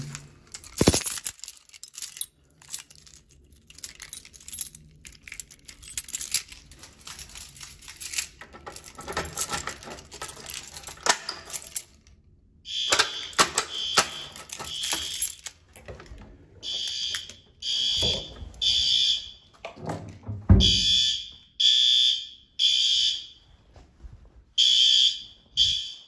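Clicks and rattling of handling, then fire alarm horn strobes go into alarm. A steady high tone about 13 s in gives way, from about 16 s, to the temporal-three evacuation pattern: three short blasts and a pause, repeating.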